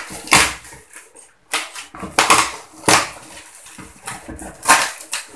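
Cardboard box being torn open by hand: packing tape and cardboard flaps ripping in about five short tearing bursts.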